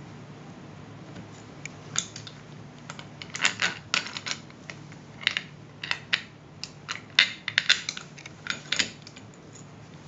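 Gloved hands handling a clear acrylic clamping jig with metal bolts: irregular sharp clicks and knocks of plastic and metal, most of them between about three and nine seconds in, over a steady low hum.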